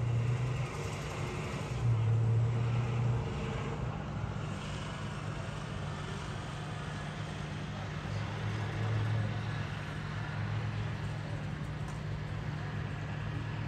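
Distant road traffic: a steady wash of noise under a low engine drone that swells and fades several times.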